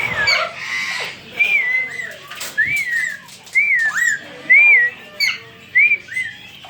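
A parrot whistling the same short rising-and-falling note over and over, roughly once a second.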